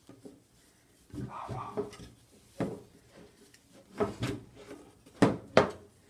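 Cinch cords being handled and beaten down tight against the buckle on a wooden cinch weaving frame. A stretch of rustling about a second in is followed by a few sharp knocks, the loudest two close together near the end.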